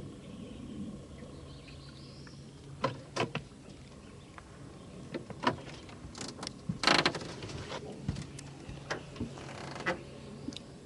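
Low steady hum with a scattered run of sharp knocks and clicks from handling on a fishing boat, the loudest about seven seconds in.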